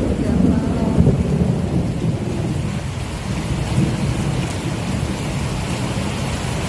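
Thunder rumbling over steady rain in a summer storm, loudest about a second in and easing off after.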